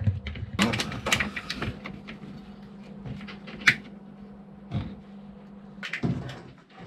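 Cable ties being fastened around a bilge pump cable and hose: a run of ratcheting clicks and rustling handling noise, with one sharp snap about three and a half seconds in, over a faint steady hum.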